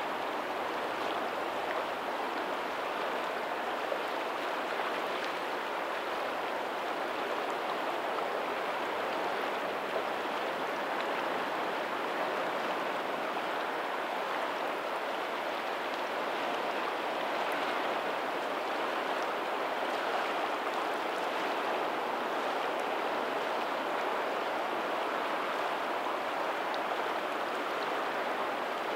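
Tidal outflow of a lagoon running past a pebbly shore: a steady, even rush of flowing water with no distinct wave surges.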